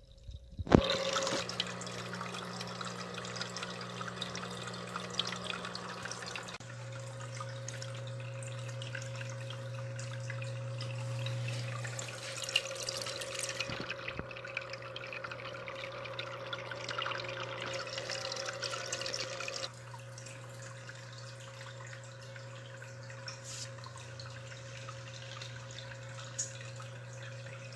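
Small electric aquarium water pump running with a steady low hum while water splashes and bubbles in the tank. There is a sharp knock just under a second in, and the sound gets quieter about two-thirds of the way through.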